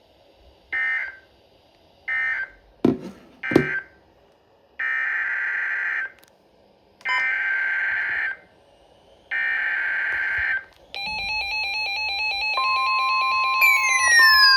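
Emergency Alert System data tones: two short screeching beeps and two quick falling blips, then three evenly spaced bursts of about a second each, the SAME header that opens the next alert. From about 11 seconds in, an electronic alert tone sounds, with tones that step and warble and falling sweeps near the end.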